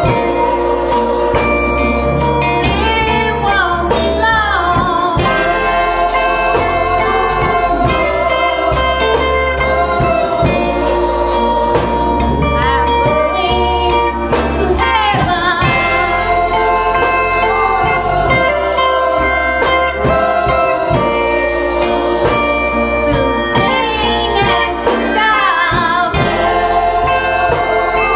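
Church choir singing a gospel song, led by a woman's voice at a microphone, over instrumental accompaniment with a steady beat.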